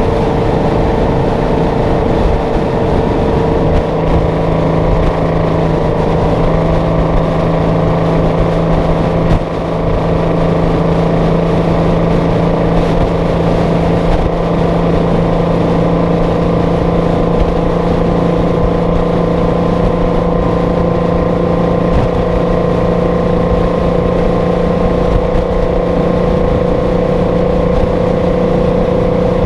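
Detroit Diesel 12V-71 two-stroke V12 diesel in a Kenworth W900A running steadily at cruising speed, its exhaust note coming through the open twin stacks. The pitch holds steady, with a brief dip in level about nine seconds in.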